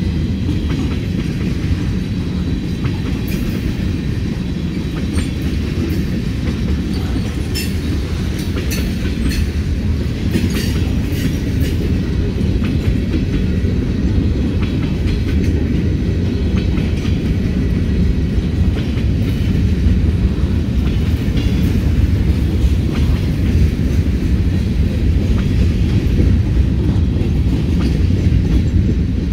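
Freight train rolling past close by, tank cars and then covered hopper cars, a steady low rumble of wheels on rail. Scattered sharp metallic clicks and clanks come mostly in the first half.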